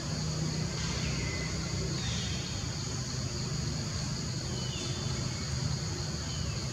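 Forest ambience: a steady high insect buzz over a low, steady rumble, with a few faint, short falling bird chirps.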